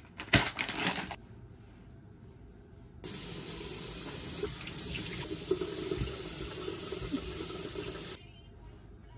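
Bathroom sink faucet running in a steady stream, switched on about three seconds in and off about five seconds later, for face washing. A few sharp clicks or knocks come in the first second.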